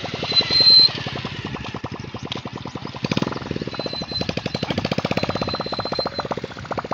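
A small engine running with a fast, even chugging beat. A short, high steady tone sounds about half a second in, and a fainter one later.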